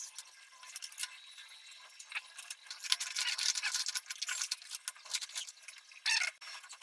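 Irregular light clicks and clinks of small hard parts being handled, with a louder clatter about six seconds in.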